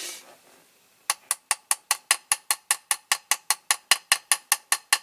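Small hammer tapping lightly and rapidly on the end of a diecast toy's metal wheel axle, about five sharp taps a second, starting about a second in, peening the axle end over to hold the wheels on the base.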